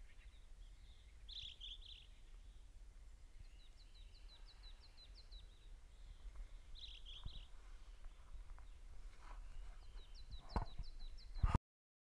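Faint calls of small forest songbirds: two short warbled phrases and two runs of quick, high chirps, over a low rumble. A couple of sharp knocks come near the end.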